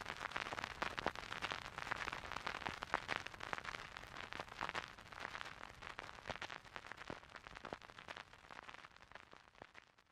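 Firework-like crackling and popping that slowly dies away.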